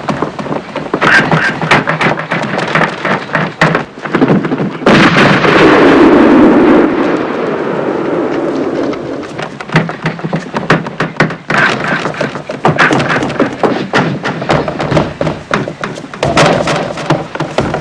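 Gunshots and heavy impacts in quick, irregular succession, with a long, louder rush of noise about five seconds in that dies away over the next few seconds.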